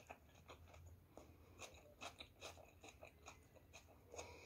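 Faint close-up chewing: scattered soft mouth clicks and light crunches, a few each second, from eating battered fried vegetables.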